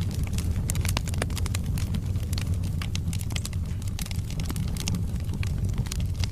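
Wood fire burning in a fireplace: a steady low rumble of flames with many quick, irregular crackles and pops from the burning logs.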